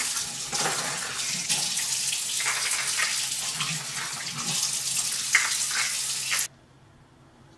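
Kitchen tap running into a stainless sink while spice-jar lids are washed by hand, with a few light clinks. The water sound cuts off suddenly near the end.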